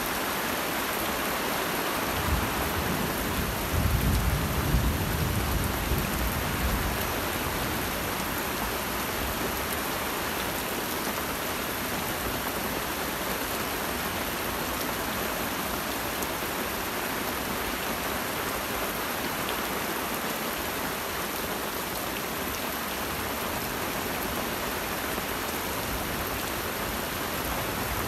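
Steady rain falling through a forest, with a low roll of thunder a couple of seconds in that swells for several seconds and fades.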